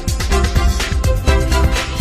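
Electronic outro jingle music with a steady beat and heavy bass.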